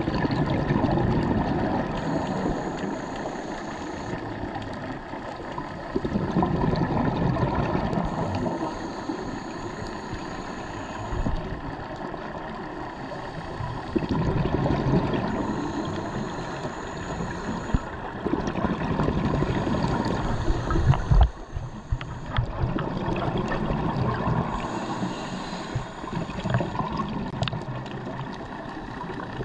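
Scuba diver breathing through a regulator underwater: exhaled bubbles rumble out in bursts every five to eight seconds, with a thin hiss of each inhalation between them. A single thud about two-thirds of the way in.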